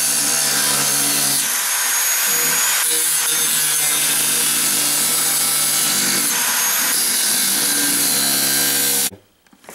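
Handheld angle grinder with an abrasive disc cutting into the steel lip of an ammo can: a steady, high-pitched grinding noise over the motor's hum. It stops abruptly near the end.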